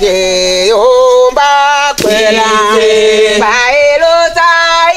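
Soundtrack song: a voice singing a melody of long held notes, sliding from one pitch to the next.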